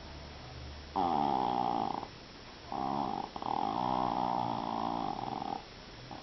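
Japanese Chin dog snoring: a short snore about a second in, then a longer one lasting about three seconds.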